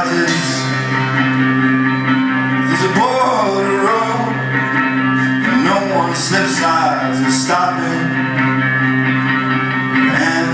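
Live rock band playing, with guitars, steady held chords and a male voice singing. The sound is recorded from the audience in a large concert hall.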